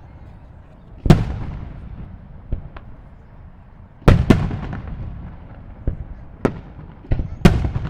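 Aerial firework shells bursting: four heavy booms (one about a second in, a close pair near the middle and one near the end) with lighter cracks between them. Each boom trails off in a long rumble.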